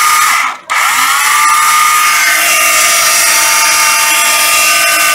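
12V cordless mini circular saw running with no blade fitted. About half a second in it cuts out quickly, as its brake stops it, then starts again, its whine rising for about a second before it settles to a steady, smooth run.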